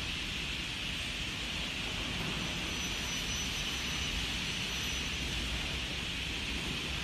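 Steady rushing background noise of a factory hall, like a large fan running, with no distinct knocks.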